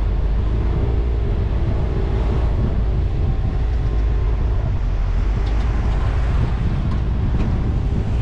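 Car driving at street speed: steady tyre, road and engine rumble, with wind rumbling on the microphone.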